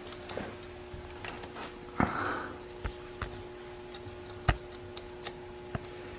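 Scattered light clicks and taps with a few sharper knocks, from handling a phone and parts at an engine on the bench, over a steady faint hum.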